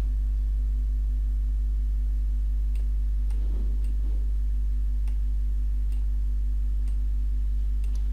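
Steady low electrical mains hum from the recording setup, with a few faint scattered clicks that fit a computer mouse being clicked while drawing.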